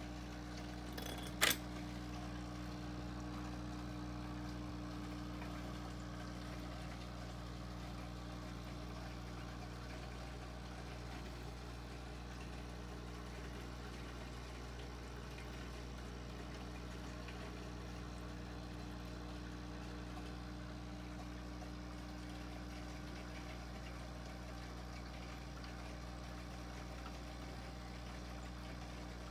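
Aquarium pump equipment humming steadily, with faint bubbling water from the air stream in the tank. A single sharp click sounds about a second and a half in.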